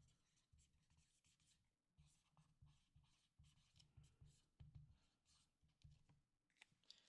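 Near silence, with faint scratching and light taps of pencil writing on paper.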